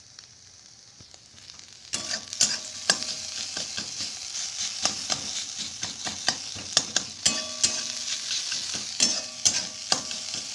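Boiled potatoes sizzling as they are stir-fried in a metal kadai, a flat metal spatula scraping and clacking against the pan. The frying starts about two seconds in, a steady hiss with frequent sharp clacks.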